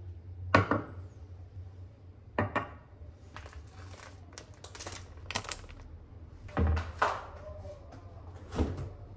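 Kitchen jars and containers being set down on a granite countertop: several sharp knocks as they meet the stone, with lighter clicks and handling in between.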